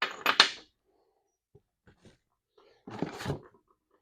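Metal lathe tooling being handled and set down on a surface: a quick clatter of clanks and clicks at the start, a few light ticks, then another clatter about three seconds in.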